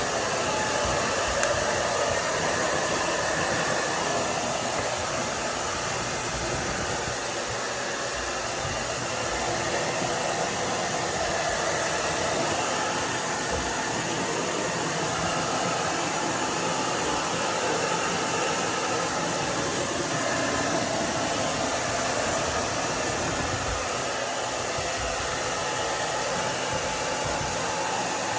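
Hair dryer blowing steadily, a constant rush of air with a slight shifting in tone.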